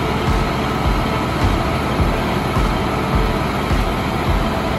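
Combination sewer cleaning and vacuum truck running at work: a steady, loud mechanical noise from its engine and machinery, with an uneven low rumble underneath.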